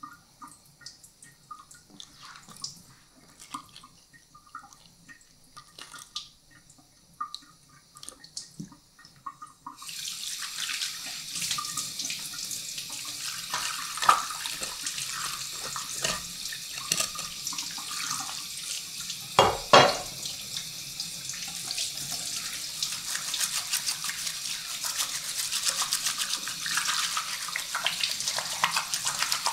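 Faint wet handling clicks at first, then a kitchen tap is turned on about a third of the way in and water runs steadily into the sink. A few sharp knocks sound over the running water, the loudest a little past the middle.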